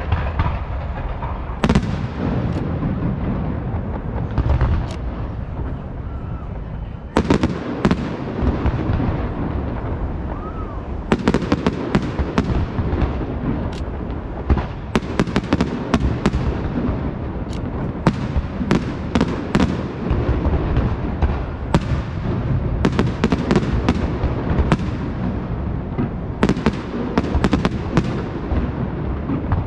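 Castillo fireworks display by Pirotecnia Martí: aerial shells bursting in a continuous rumble, with many sharp bangs and dense crackling that grow busier from about eleven seconds in.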